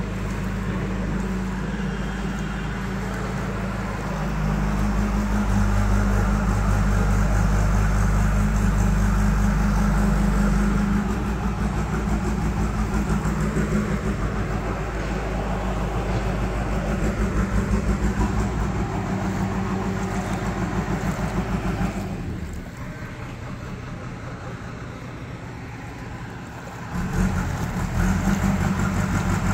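A low, steady engine hum. It drops away about 22 seconds in and comes back about 27 seconds in.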